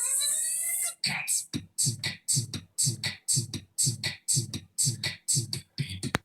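A rising pitch sweep for about the first second, then a fast 'boots and cats' beatbox beat: low kick-drum 'boots' alternating with hissy hi-hat 'cats', about four sounds a second, even and steady.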